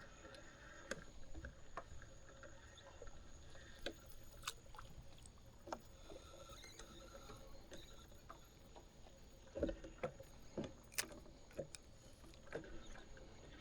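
Faint scattered clicks and light knocks of fishing tackle and gear being handled in a small fishing boat, with a few louder knocks about ten seconds in.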